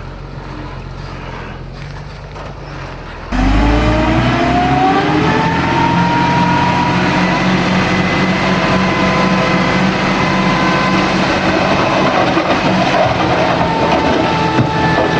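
Heavy earthmoving machine's diesel engine. It runs low at first, then jumps suddenly louder about three seconds in, its pitch rising for a couple of seconds as it revs up. It then runs hard and steady with a high whine.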